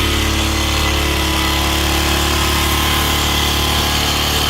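Small 110cc ATV engine converted to run on propane through a dual-fuel vaporizer, running steadily at an even speed.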